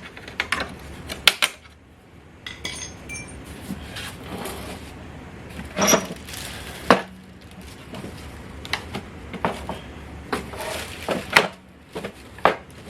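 Spring clips being pried off a 1966 Mustang heater box and set down: irregular sharp clicks and metallic clinks, several louder snaps among them.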